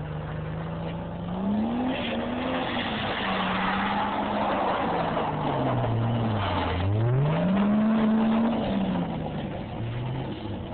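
Toyota Supra's turbocharged 7M-GTE straight-six revving up and down as the car drifts on snow. The revs climb about two seconds in, drop sharply past the middle, then climb again before falling off near the end.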